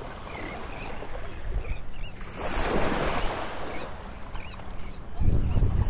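Small waves lapping at a shoreline, with a louder wash of water swelling up about two and a half seconds in. Near the end, wind starts buffeting the microphone with a low rumble.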